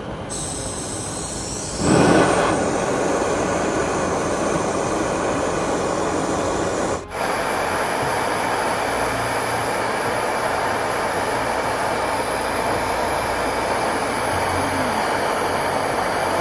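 Gas torch flame running with a steady rushing noise as it heats gold to a glow. It gets louder about two seconds in and drops out for an instant at about seven seconds.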